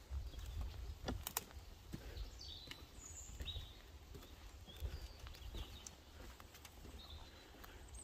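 Birds chirping now and then in woodland, over scattered light clicks of footsteps on a footbridge's metal grating and a low rumble on the microphone.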